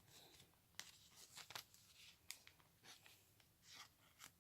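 Near silence with a few faint, scattered clicks and rustles of Pokémon trading cards and foil booster-pack wrappers being handled.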